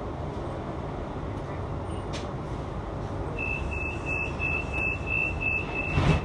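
Inside a light-rail tram standing at a stop: a steady low hum, then from about halfway a single high beep pulsing about three times a second for some three seconds, the door-closing warning. It ends in a loud thump as the doors shut.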